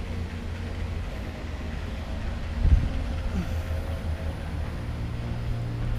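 A vehicle engine running steadily with a low drone, with a brief thump about two and a half seconds in.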